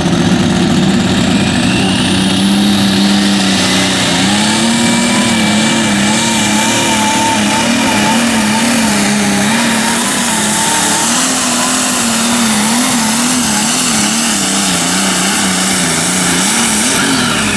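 Light limited super stock pulling tractor's turbocharged diesel engine running flat out under load as it drags the sled. Its pitch is steady at first, then wavers quickly up and down as the tractor hooks and bounces, with a high whine above it. The engine winds down near the end as the pull finishes.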